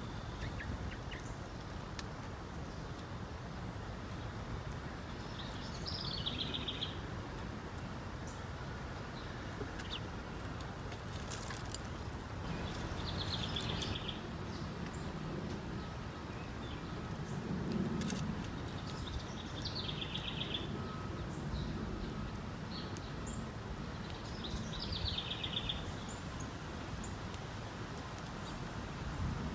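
Outdoor ambience with a bird calling four times, each a short falling call about a second long, every six or seven seconds. Under it runs a steady low rumble and a faint, fast, high ticking.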